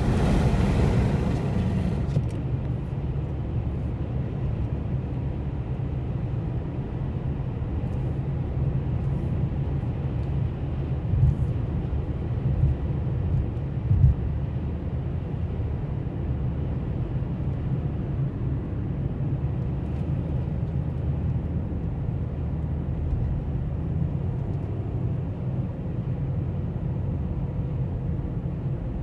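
Steady low rumble of a vehicle running, with a few brief thumps about eleven and fourteen seconds in.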